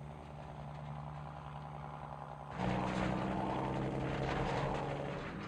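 Heavy truck engine running steadily with a low hum. It suddenly becomes louder and fuller about two and a half seconds in.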